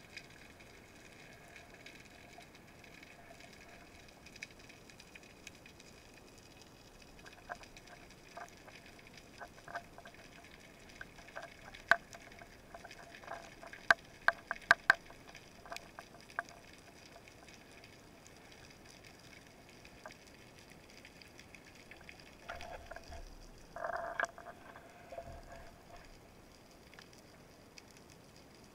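Underwater sound picked up by a camera on a speargun. A faint steady background is broken by scattered sharp clicks, which bunch together and grow loudest around halfway through. A brief louder rustle comes about three-quarters of the way in.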